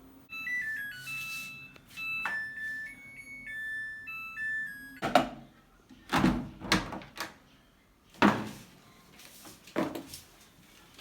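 Samsung front-load washing machine playing its electronic beeping tune, a run of short notes stepping between pitches. Then five or six heavy, dull thunks follow.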